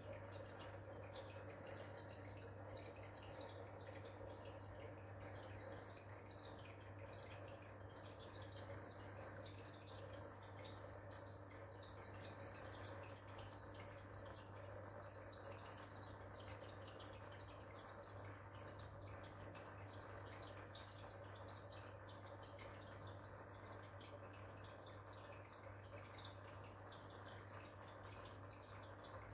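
Faint, steady running of an aquarium's internal filter: a low electrical hum from the pump with a light trickle and dripping of water at the surface.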